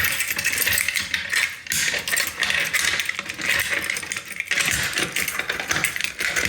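Fire alarm mini horns sounding in alarm with a rattling buzz, set off by a pulled manual pull station.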